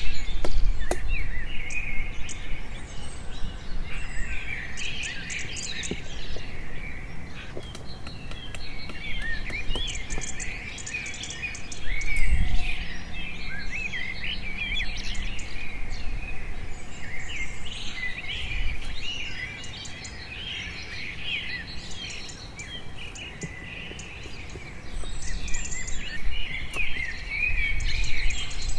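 Many small birds chirping and calling continuously, over scattered short knocks and scrapes of a machete blade cutting and whittling a thin bamboo stick.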